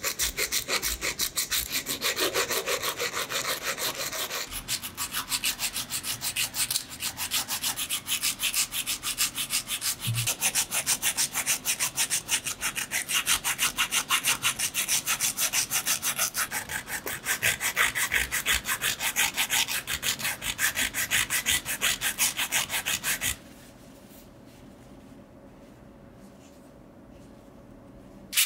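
Sandpaper rubbed against a steel pincer jaw by hand, in quick, even back-and-forth strokes. The sanding stops about five seconds before the end.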